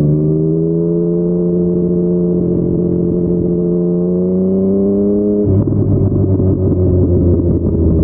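Yamaha MT-09's three-cylinder engine through a Yoshimura R55 slip-on exhaust, pulling steadily with its note rising slowly. About five and a half seconds in, the note drops abruptly to a lower, rougher sound.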